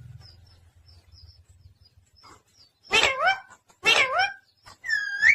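Pet parrot calling: two short, harsh calls about a second apart, then a rising whistled note near the end.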